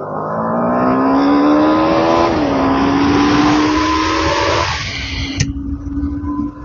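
TVS Apache RR 310's single-cylinder engine under hard acceleration, revs climbing, dropping at a gear change about two and a half seconds in, climbing again and dropping at a second shift near the five-second mark. Wind rushes over the microphone at speed.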